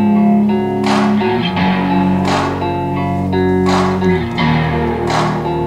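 Guitar music with a regular beat, a sharp hit about every second and a half, played back from a CD spinning in the CEC TL5100 belt-drive CD transport under test.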